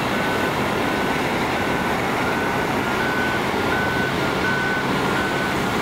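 Diesel engines of Caterpillar bulldozers running under load, with backup alarms beeping over and over at two slightly different pitches.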